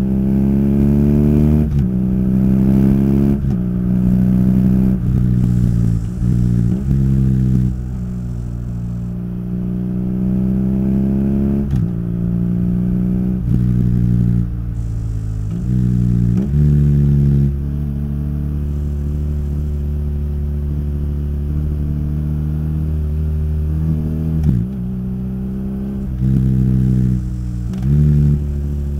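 BMW R nineT's boxer-twin engine through its stock Akrapovič exhaust, the motorcycle accelerating through the gears: the engine note rises and drops sharply at each upshift, several times in quick succession, with stretches of steady cruising between.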